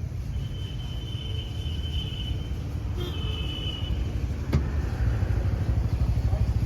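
A car running with a steady low rumble that grows slightly louder, a thin high whine heard twice, and a single sharp click about four and a half seconds in.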